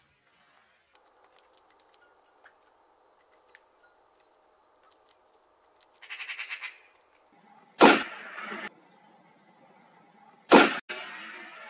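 Two rifle shots from a scoped bolt-action hunting rifle, about three seconds apart, each with a short rolling echo. Shortly before the first shot there is a brief rapid rattle of clicks.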